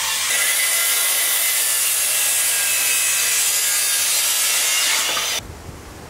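A power tool running steadily on wood, a loud even whine and hiss. It gets louder just after the start and cuts off abruptly about five seconds in.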